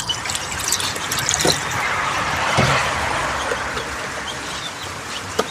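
A cooking pot knocking and clattering a few times as it is set onto an open wood fire, over a steady hiss.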